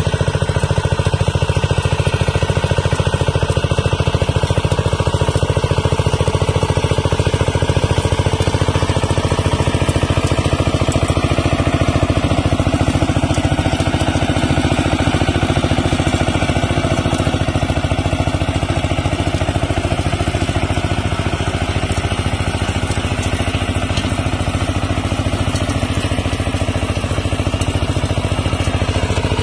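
Kamco DI120 power tiller's 12 hp single-cylinder diesel engine running steadily under load while its rotary tiller churns hard, dry soil.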